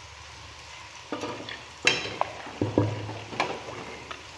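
A metal spoon stirring pasta in a pot of boiling water. After about a second of faint steady hiss, it knocks and scrapes against the side of the pot several times.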